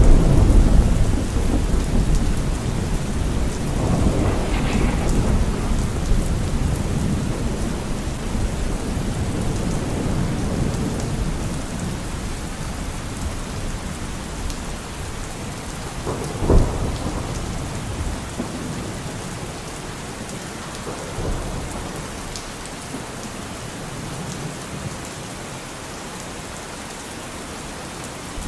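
Steady rain falling during a thunderstorm, with rolling thunder: a heavy rumble at the start and another about four seconds in, then a sharper clap about sixteen seconds in. The rumbling dies away toward the end, leaving the rain hiss.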